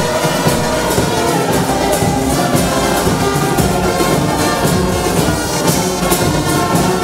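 Brass band playing: trumpets, trombones and tubas sounding together, with a steady beat.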